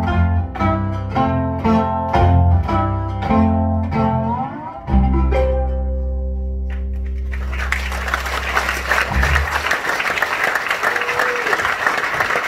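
Steel resonator guitar played slide-style finishing a blues tune: a repeating picked figure, a slide up, then a final low chord left ringing. Audience applause breaks in a little past halfway and carries on.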